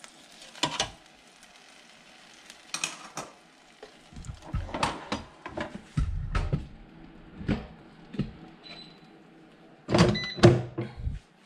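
Metal tongs knocking against pork ribs and a nonstick air-fryer basket as the ribs are turned. About six seconds in, the basket drawer slides into a Cosori air fryer and seats with a heavy thump. Near the end come loud clicks and a short electronic beep.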